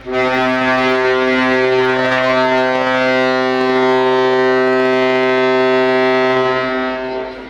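Passenger ship KM Lawit's horn sounding one long, steady blast of about seven seconds, a low tone rich in overtones that starts abruptly and tails off near the end. It is one of three blasts signalling that the ship is about to depart.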